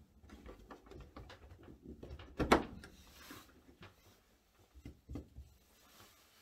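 Latch handles of a Lewmar portlight being turned down and snapped shut, clamping the newly made polycarbonate lens against its rubber seal. A run of small clicks and knocks, with one sharp knock about two and a half seconds in as the portlight closes, and a few lighter knocks near the end.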